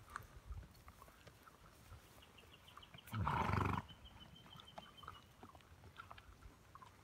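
A horse snorts once about three seconds in, a short, rough, fluttering blow.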